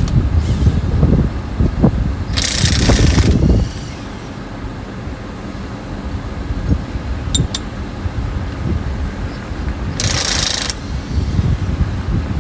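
Cordless impact wrench run in two bursts, the first about a second and a half long and the second under a second, spinning lug nuts off the wheel. A low rumble sits under the first few seconds.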